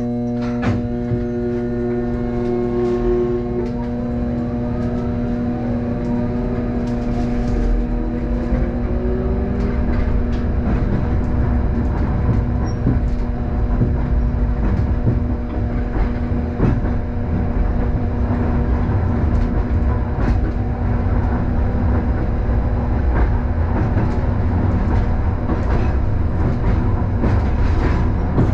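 Hakodate city tram, heard from inside the car, pulling away from a standstill. A steady electrical hum and a sharp click under a second in give way to a motor whine rising in pitch over several seconds as the tram gathers speed. The whine then settles into steady wheel-on-rail running noise with scattered clicks from the track.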